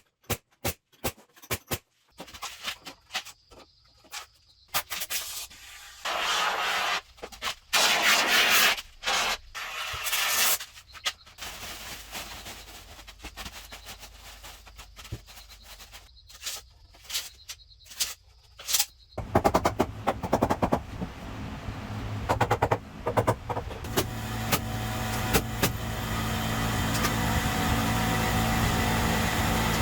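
Woodworking sounds: scattered knocks and clicks with short rasping bursts, then about two-thirds through a power tool's motor starts and runs steadily, getting louder toward the end.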